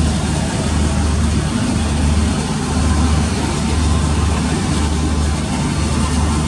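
Steady low drone of a ship's engines heard on board a passenger vessel, with a constant rushing of wind and sea over it.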